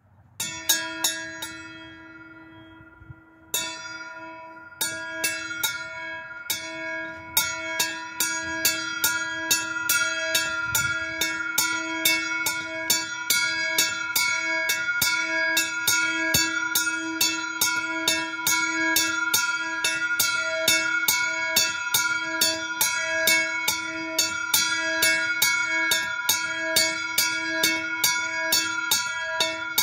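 Small bronze Marienglocke cast by Petit & Edelbrock in 2020, rung by swinging. A few separate clapper strokes come first, then from about a quarter of the way in the bell settles into steady ringing at about two strokes a second. The strokes overlap in a sustained ring.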